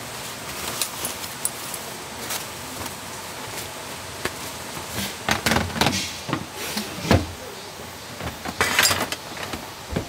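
Scattered clicks, knocks and rustles of things being handled. They get busier about five seconds in, with a sharp knock near seven seconds and a brief scraping rustle near nine seconds.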